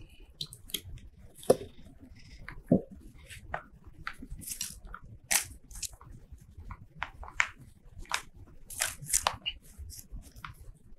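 Paper rustling and crinkling while a notebook is being worked by hand, with scattered small clicks and taps of craft items. Two sharper knocks come in the first three seconds, as something is set down on the table.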